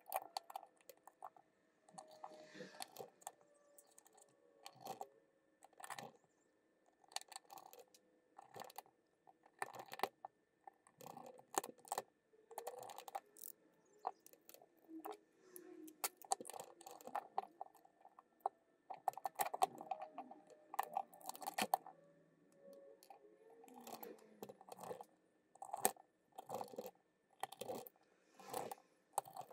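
Plastic housing parts of a handheld inspection camera being handled and pressed together: faint, irregular light clicks and knocks.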